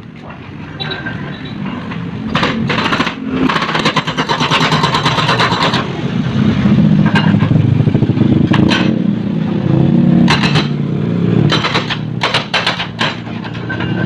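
Excavator-mounted hydraulic breaker hammering concrete pavement in rapid, continuous blows, with the excavator's engine running underneath; it grows louder over the first several seconds.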